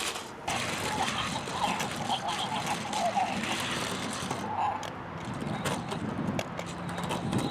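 Grrrumball remote-control toy running: its small electric motors whir and its wheels clatter on the floor as it drives and spins, with a few short bursts of its built-in sound effects.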